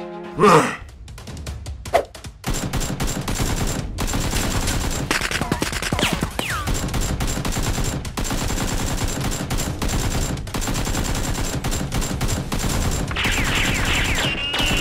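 Sustained rapid automatic gunfire, many shots a second, beginning after one or two single loud bangs in the first couple of seconds.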